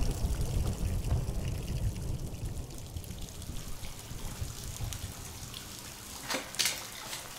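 Rain and trickling water from a sound-effect bed, with a low rumble that fades through the first few seconds. A few sharp drips or splashes stand out near the end.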